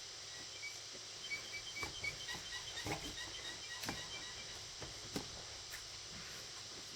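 Eating sounds: scattered wet mouth clicks and small taps while chewing, over a steady hiss. A quick run of faint, short, high chirps is heard in the first half.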